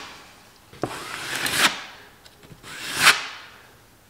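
Two scraping strokes as mud-coated drywall tape is smoothed flat against the wall, each building to a peak, the first about a second and a half in and the second about three seconds in.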